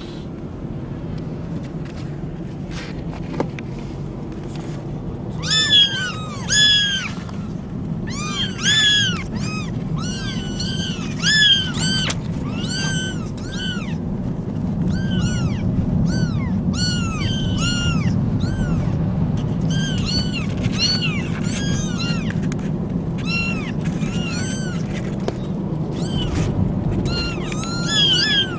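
A litter of young kittens mewing over and over, short high arched mews that start in earnest about five seconds in and then come thick and overlapping, several a second. A steady low rumble runs underneath.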